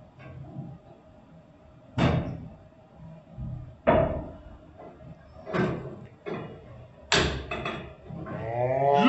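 Several sharp knocks and clatters of cookware at a gas stove, spaced a second or two apart. Music fades in near the end.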